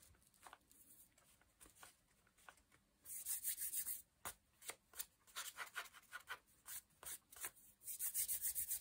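Hands rubbing and smoothing a paper journal page to press down freshly glued paper. Soft, quick strokes of skin on paper, with a longer run of rubbing about three seconds in and a fast run of strokes near the end.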